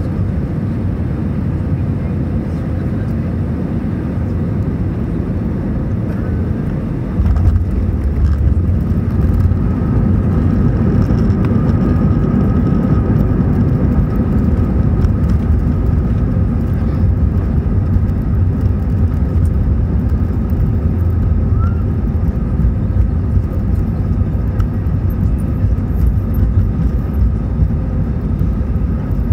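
Airbus A320 engine and airflow noise heard from inside the cabin during landing. About seven seconds in it jumps suddenly to a louder, deeper rumble as reverse thrust comes in, and it stays loud as the aircraft rolls out along the runway.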